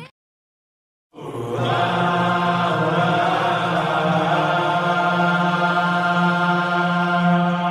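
About a second of silence, then a sustained droning chord fades in and holds steady: a chant-like drone opening a song.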